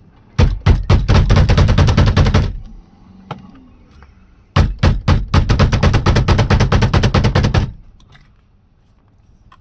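Pneumatic impact wrench hammering in two bursts of rapid, evenly spaced blows, each a few seconds long, with a short pause between them.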